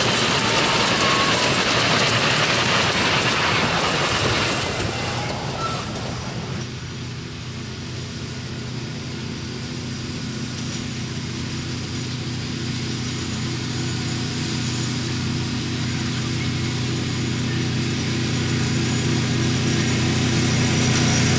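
Miniature railway coaches rolling away along the track, their wheel noise fading about six seconds in; then the steady engine hum of a miniature diesel locomotive, growing louder as it approaches.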